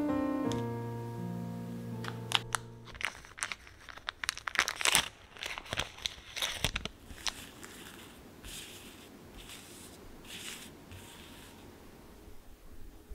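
Soft piano music fading out in the first few seconds, then a clear plastic bag crinkling and crackling sharply as a pack of translucent paper sticker sheets is handled, loudest about five seconds in. Softer rustling of the paper sheets follows near the end.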